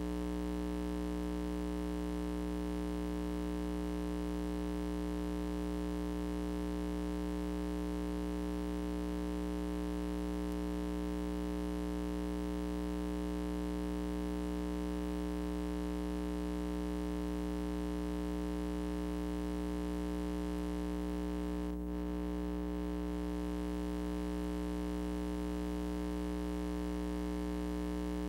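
Steady electrical mains hum, a low buzz with its overtones and nothing else audible over it. There is a brief dropout with a faint click about twenty-two seconds in.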